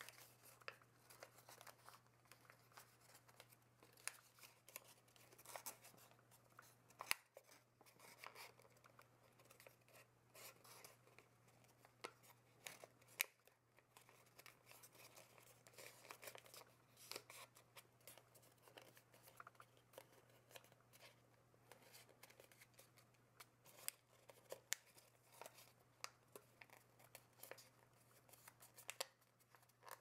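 Faint crinkling and rustling of origami paper being folded and creased by hand, with many sharp crackles as the folds are pressed.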